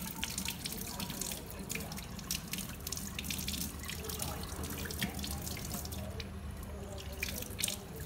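Tap water running into a stainless steel sink as hands rinse something under the stream, with irregular splashing and dripping throughout.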